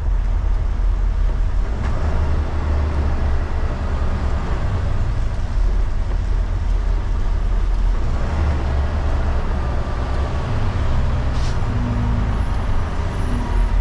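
Semi truck's diesel engine idling, heard from inside the cab as a steady low rumble.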